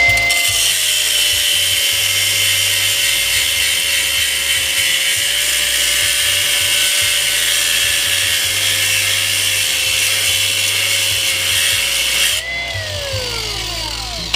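Electric power tool cutting into a cast aluminum fire hose coupling, its motor tone sagging slightly under load. Near the end it is let off and spins down with a falling whine, then starts up again.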